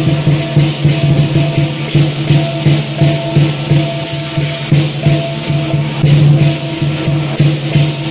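Chinese lion dance percussion: a big drum beating a steady, pulsing rhythm with crashing cymbals and ringing gong strokes.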